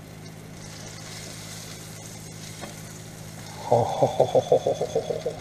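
A sandwich frying in butter in a nonstick pan, with a soft steady sizzle. About three and a half seconds in, a louder run of quick stuttering pulses, about eight a second, lasts for about a second and a half.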